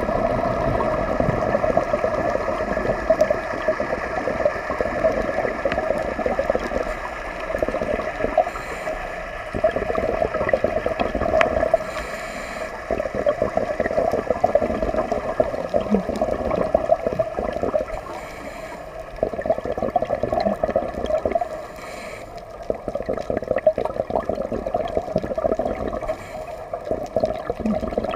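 Scuba regulator breathing underwater: bubbles of exhaled air gurgle in swells a few seconds long, separated by quieter spells, over a steady underwater hiss.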